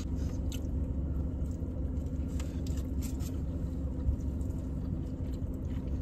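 Steady low rumble of a car idling, heard inside the cabin, with a few faint clicks of food and wrappers being handled.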